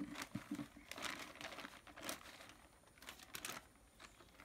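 Polythene bag crinkling as it is handled and spread open, in irregular rustles that thin out in the second half.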